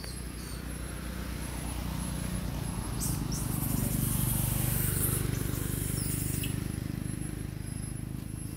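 Outdoor forest ambience: a steady thin high insect-like tone, with a broad rushing noise and low rumble that swells up a few seconds in and fades again, and a few faint short high squeaks.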